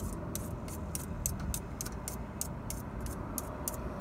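Disposable wooden chopsticks rubbed against each other, a quick run of short scraping ticks at about four to five strokes a second, over a low rumble of passing traffic.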